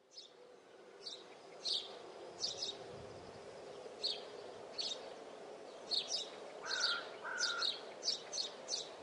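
Wild birds chirping: short high chirps every second or so, quickening toward the end, with two lower whistled notes about seven seconds in, over a faint steady hum.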